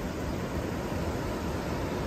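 Ocean surf breaking and washing over beach rocks: a steady rushing noise with a heavy low rumble.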